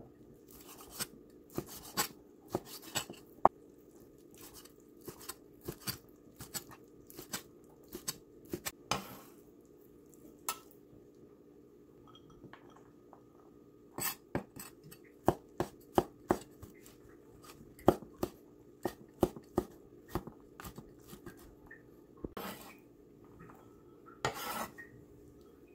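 Chinese cleaver chopping on a bamboo cutting board: sharp, irregular knocks of the blade on the board, in quick runs with pauses between, over a steady low hum.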